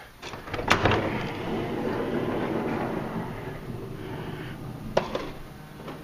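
Honda Odyssey power sliding door mechanism working: a click, a few seconds of steady motor running, then a sharp clack about five seconds in. It is trying to latch but not quite latching.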